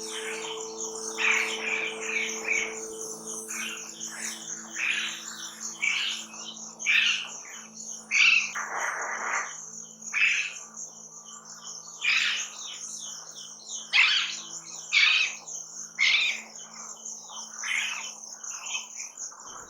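Songbirds chirping in short repeated calls, roughly one every second, over a steady high insect trill. Faint low held tones lie underneath and fade away near the end.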